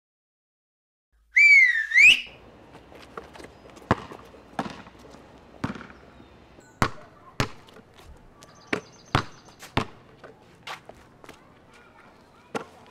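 About a second in, a short, loud whistle blast that wavers in pitch. It is followed by a basketball bouncing on concrete, with sharp bounces at uneven spacing.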